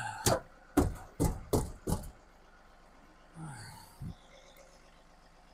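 Sharp knocks from the old air-conditioning unit's metal cabinet as it is worked loose: five in quick succession, about half a second apart, then a short grunt and one more knock a couple of seconds later.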